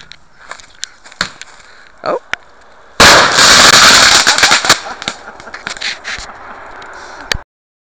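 A firework going off about three seconds in, after a few faint crackles: a sudden, very loud blast that stays loud for about two seconds, then scattered crackling that dies away before the sound cuts off.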